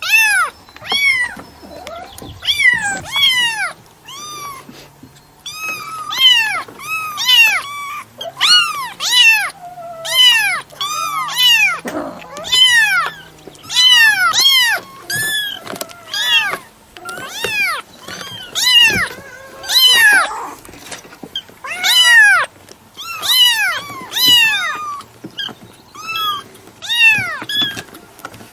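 Cat meowing over and over, short high-pitched meows, each rising and then falling in pitch, coming about one or two a second with hardly a pause.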